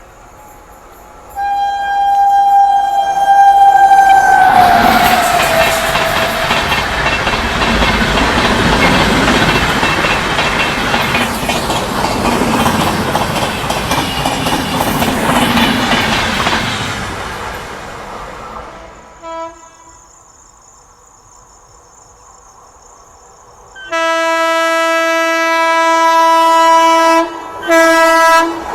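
An Indian Railways express train sounds its horn as it runs through the station without stopping. The horn's pitch drops as the locomotive goes by, and then the coaches rush and clatter past over the rails for about thirteen seconds before fading away. Near the end a lower-pitched train horn blows loudly in two blasts, after a brief toot a few seconds earlier.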